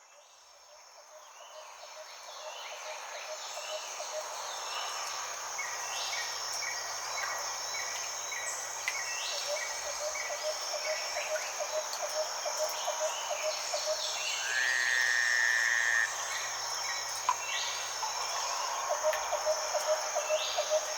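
Tropical rainforest night ambience fading in over the first few seconds. A steady high-pitched insect drone sits under a fast pulsing frog chorus, with repeated short chirping calls over them.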